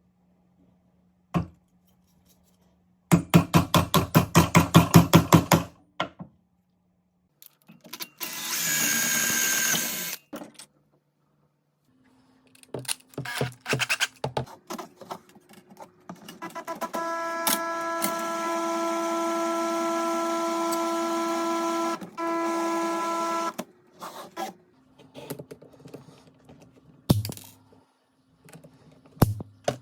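Workshop tool noises: a fast rattling run of clicks, a short hiss, scattered knocks, then a small motor whirring steadily for about seven seconds before it stops.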